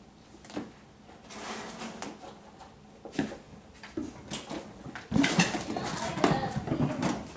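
Bengal kittens playing on a tiled floor and mat: scattered light knocks, scuffles and rustles, getting louder and busier about five seconds in.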